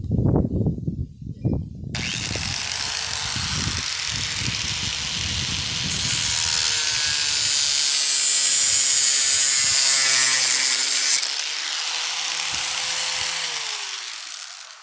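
Electric angle grinder cutting through a plastic horn trumpet. A few knocks of handling come first. The grinder switches on about two seconds in with a steady motor whine, the hiss of the disc on the plastic grows louder in the middle of the cut, and the motor winds down near the end.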